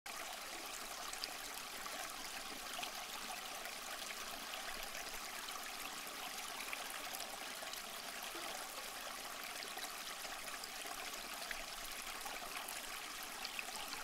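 Small homemade tabletop waterfall fountain running: thin streams of water trickling steadily from several spouts into the basin below.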